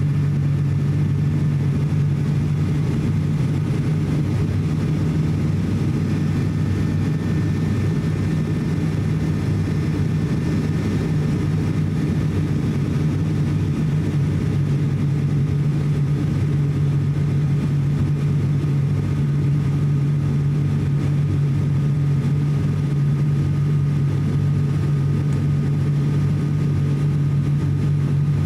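Inside the cabin of an ATR42-600 turboprop airliner on its landing approach: the steady drone of its Pratt & Whitney PW127M turboprop engines and propellers, with a strong low hum.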